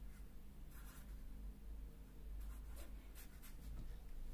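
Felt-tip marker scratching faintly on paper in short strokes, writing a number and double-underlining it: a brief burst about a second in, then a quicker run of strokes.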